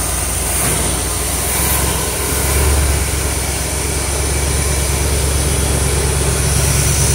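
1973 Corvette Stingray's Chevrolet V8 running steadily on its first start after 25 years of sitting, its throttle worked by hand at the carburetor, briefly louder between two and three seconds in.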